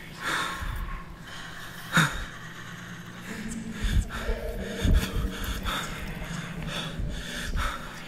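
A person breathing hard in short, rough gasps while moving fast, with several low thumps in the second half.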